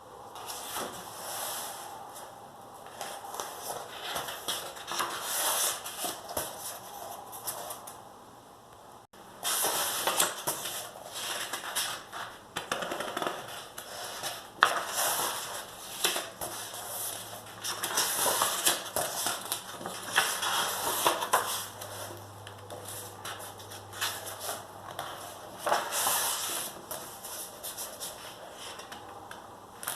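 Paper rustling and scratching in uneven spells, with small clicks. It breaks off for a moment about nine seconds in.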